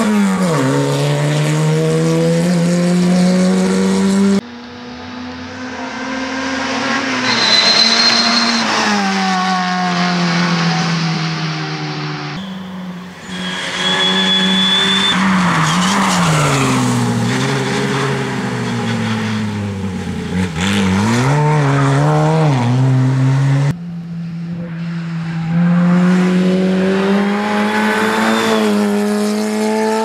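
Škoda 130 rally car's engine revving hard, rising through the gears and dropping off for corners, across several passes that cut abruptly from one to the next. A short high tyre squeal comes twice.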